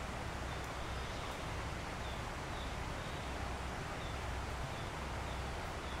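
Forest ambience: a steady rushing noise with a low, uneven rumble beneath it, and faint short high bird chirps repeating every second or so.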